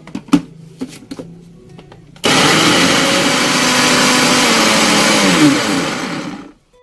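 Electric blender grinding onion, ginger and dried chillies into a wet paste. A few clicks and knocks as the jar is handled, then the motor starts abruptly about two seconds in, runs steadily and loud, and winds down to a stop near the end.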